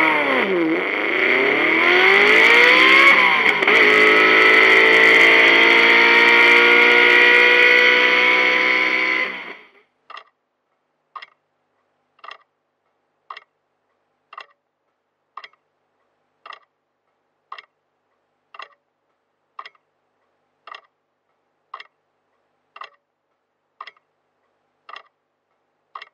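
Racing-car alarm clock sounding its alarm, a recorded Porsche 917 race engine revving, dropping in pitch twice as it shifts up through the gears and then holding a high, steady note. It cuts off about ten seconds in, leaving the clock ticking about once a second.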